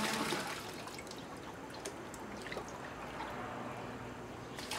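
Watery clay slurry trickling and dripping in the settling pits, with scattered small drips.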